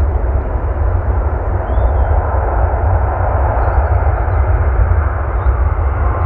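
Airbus A350-900 airliner's Rolls-Royce Trent XWB jet engines running at low thrust while it taxis. The engine noise is a steady rush with a strong low rumble beneath it, swelling slightly about halfway through.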